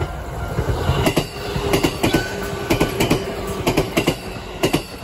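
JR East 205 series electric multiple unit passing close by: a steady rumble with its wheels clicking in quick pairs over the rail joints (clickety-clack) about once a second. The clatter stops and the rumble fades near the end as the last car goes by.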